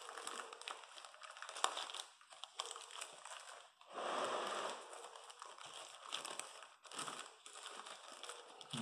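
Clear Ziploc-type plastic bag crinkling and crackling as it is stretched down over a plastic cup to form a humidity dome, with a few sharp crackles and the loudest rustle about four seconds in.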